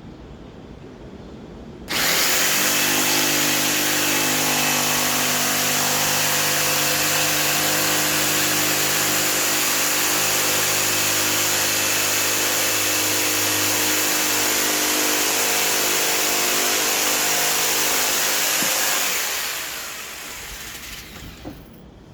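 An electric power saw switches on abruptly about two seconds in and runs steadily while cutting pieces out of wooden fence pickets, then winds down near the end.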